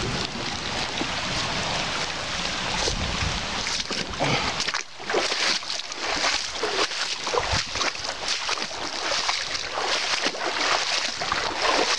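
A person wading across a shallow, rocky river: water sloshing and splashing around the legs at each step over the steady rush of the current. The splashes come irregularly, from about five seconds in.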